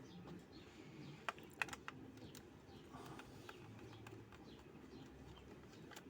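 A few light, sharp clicks and taps of the hair dryer's plastic housing and tools being handled as it is taken apart, mostly clustered between one and two and a half seconds in, over faint bird chirps.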